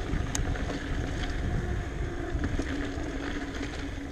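Wind rumbling on an action camera's microphone, with a steady low hum underneath and a few sharp ticks.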